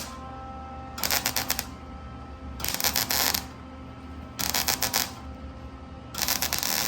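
A welder tacking a sheet-metal body panel on: four crackling bursts of under a second each, about a second and a half apart, with a faint steady hum between them.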